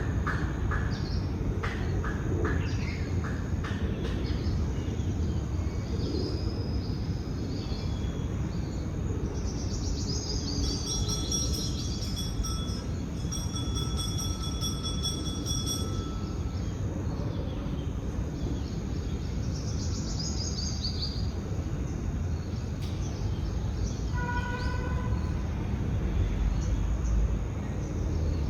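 Birds chirping over a steady low rushing background of outdoor noise, with a held high, multi-pitched tone for a few seconds near the middle.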